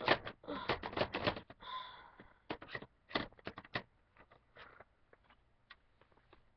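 Hard plastic clicking and clattering as toy figures and pieces of a Littlest Pet Shop playset are handled. Rapid and dense for the first second and a half, then thinning to scattered taps that fade out.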